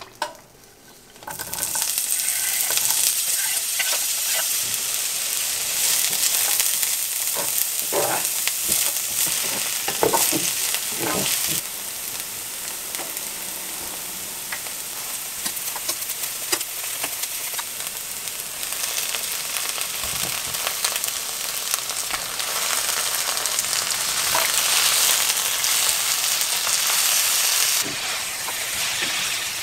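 Chopped green onions sizzling in hot oil in a nonstick frying pan, a steady hiss that starts about a second and a half in. Now and then a wooden spatula scrapes as the pan is stirred, and the hiss eases a little near the end.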